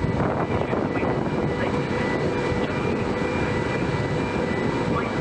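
The ferry MV Caledonian Isles's engines and onboard machinery running with a steady drone, several steady tones over a low rumble.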